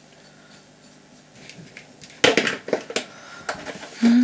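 Loud plastic knocks and clatter as the mixing bowl is fitted onto a Bosch stand mixer. Near the end the mixer's motor starts with a steady hum, beating cream cheese and powdered sugar.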